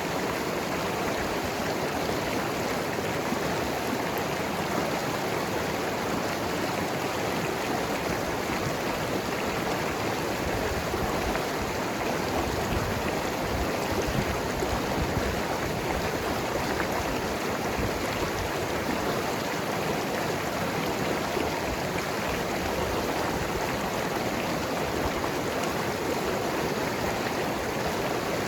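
Mountain river rushing and gurgling over rocks, a steady, unbroken water noise.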